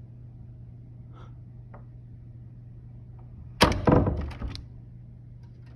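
A sudden loud thunk about two-thirds of the way in, followed by a quick clatter of several smaller knocks that dies away within about a second.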